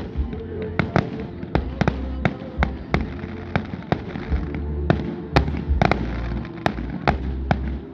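Fireworks display: aerial shells bursting in a rapid, irregular series of sharp bangs, several a second, over a low rumble.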